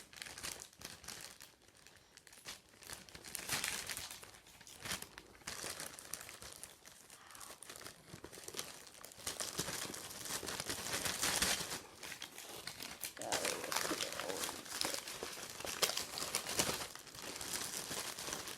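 Packaging crinkling and crumpling as it is handled and stuffed into a bag, in irregular rustling spells that swell and fade.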